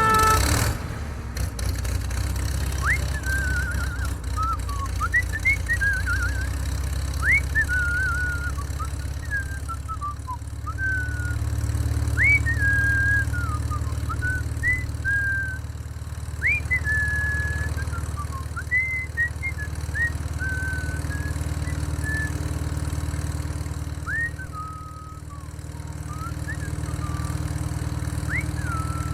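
A motor or engine running steadily with a low hum. Over it, a bird repeatedly sings short whistled phrases, each a quick upward sweep followed by a held or falling note, every second or two.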